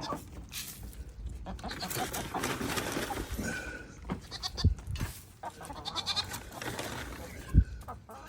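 Goats bleating now and then, with two sharp low thumps, the louder one near the end.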